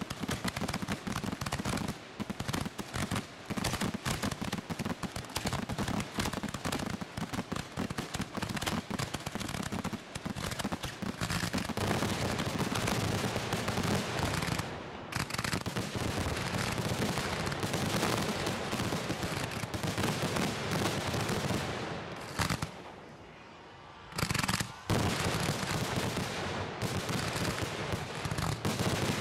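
Fireworks going off in a dense, continuous barrage of rapid bangs and crackles, with one short lull a little over three-quarters of the way through.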